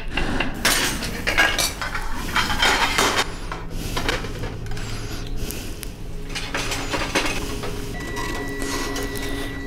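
Restaurant kitchen clatter: quick knocks of a chef's knife on a cutting board and clinks of plates and utensils over a steady low hum. A thin, steady high tone comes in near the end.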